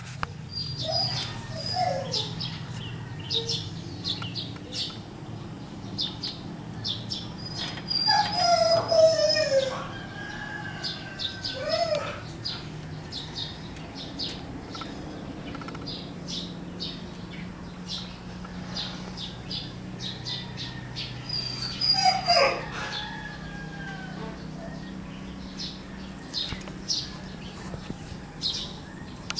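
Japanese Spitz whining and howling in short, falling wails, several times over. The loudest bouts come about a third of the way in and again about three-quarters through.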